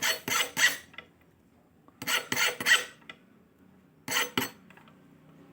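Soldering iron scraping in quick rasping strokes, in three short runs of two to four strokes each, while solder balls are formed on a phone's charging-connector pads.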